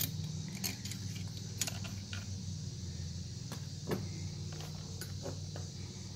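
Long steel through-bolts clinking and scraping against the generator's metal housing as they are slid back in, a handful of scattered metallic clinks with one louder knock about four seconds in, over a steady low hum.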